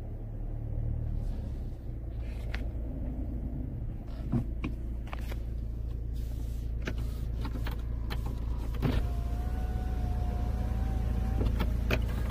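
The driver's power window of a Hyundai Avante AD running down: a steady motor whine lasting about two seconds, over the low hum of the idling engine. Several sharp clicks come before and after it.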